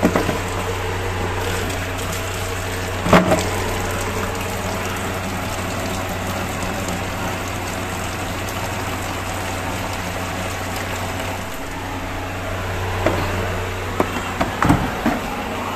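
Water from a hose pouring into a plastic tub: a steady splashing fill over a steady low hum. A sharp knock about three seconds in, and a few lighter knocks near the end.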